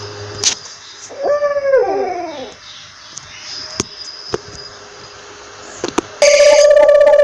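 An owl gives a falling, wailing call, doubled by an echo or a second call, with a few sharp clicks around it. Near the end a loud, steady electronic tone cuts in suddenly.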